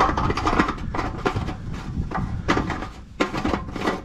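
Plastic fuel cap being screwed onto the petrol tank of a walk-behind tractor: a run of short scraping clicks from the cap turning on the filler neck.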